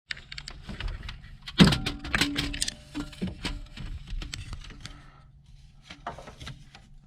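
Handling noise of tools and wiring: a string of clicks, knocks and rustles, with one louder knock about one and a half seconds in, over a low steady hum.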